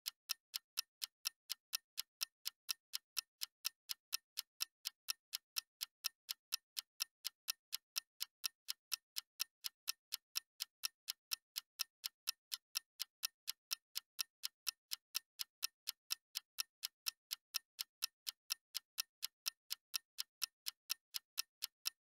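Steady, perfectly even clock-like ticking, about four sharp ticks a second, with dead silence between the ticks.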